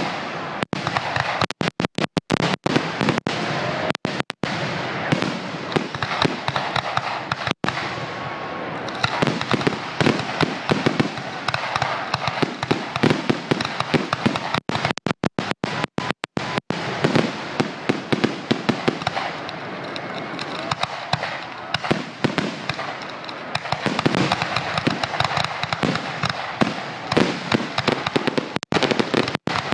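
Fireworks finale: a dense, continuous barrage of shell bursts and reports with no let-up. The recording cuts out for an instant several times.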